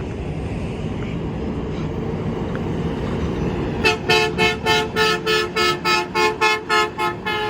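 Garbage truck's air horn honked in a rapid string of about a dozen short blasts, roughly three a second, starting about four seconds in, over the low rumble of the truck's engine running.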